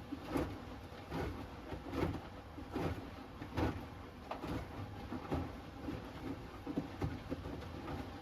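Hoover Axi 10kg front-loading washing machine on its Rapid 30-minute programme, drum turning at low speed with the laundry tumbling over, a soft thud about every second over a low rumble.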